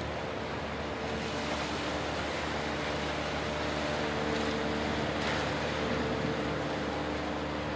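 A large motor yacht under way: a steady engine hum with several constant tones, over a wash of wind and water noise.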